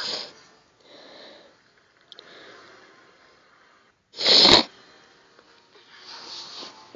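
A person's breathy sounds close to the microphone: soft puffs of breath with one short, much louder sneeze-like burst a little past four seconds.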